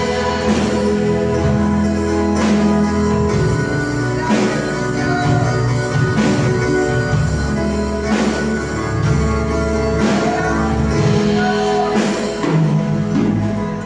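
Live worship music: an electronic keyboard holding sustained chords, with drums marking a slow beat about every two seconds.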